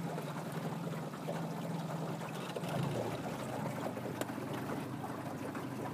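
Small Mercury tiller outboard motor (20 hp) running slowly, a steady low hum whose pitch shifts about three seconds in.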